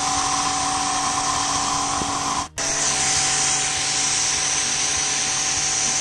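Starq W3 1800W electric pressure washer running, its motor and pump giving a steady whine over the hiss of the high-pressure water jet spraying onto concrete. The sound cuts out for an instant about two and a half seconds in.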